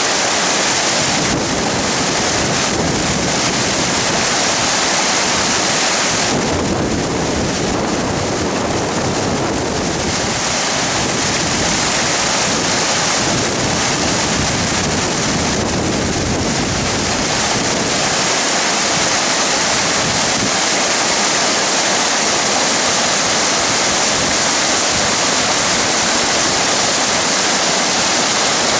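Mountain stream cascading over granite boulders: a steady, loud rushing of water.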